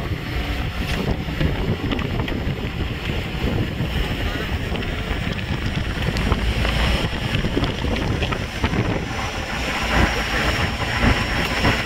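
Wind buffeting the microphone over the steady running of a motorboat's engine as the boat tows a parasail out at sea.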